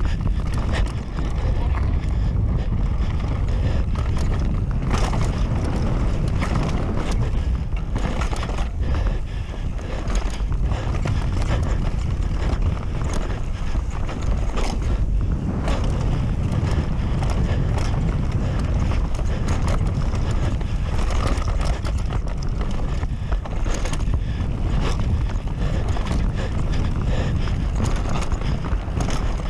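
Canyon Sender downhill mountain bike descending a dirt trail at race speed: constant wind rush on the microphone and tyre rumble, with a continual rattle of knocks and clicks from the bike over bumps and roots.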